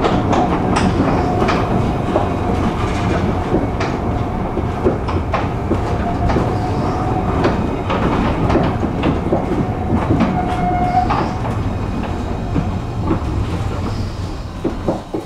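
Tram running on street track: a steady rumble with irregular clicks and knocks of the wheels over rail joints, and a steady whine for most of it that stops about eleven seconds in. It gets quieter over the last few seconds.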